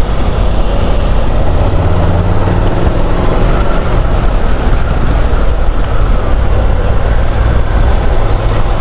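Honda NC750 parallel-twin engine running steadily while the motorcycle is ridden, under heavy low wind rumble on the helmet microphone.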